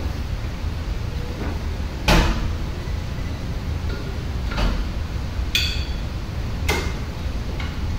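Metal clanks from a seated chest press machine's weight stack during reps: a handful of sharp knocks, the loudest about two seconds in, over a steady low hum.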